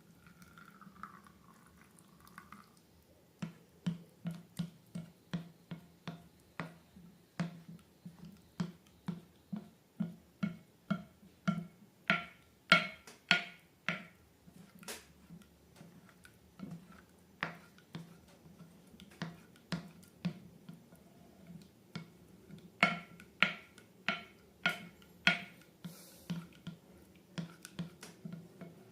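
Slime being squeezed and pressed, giving a long run of sharp, wet clicking pops at about two a second. A short squeak comes right at the start.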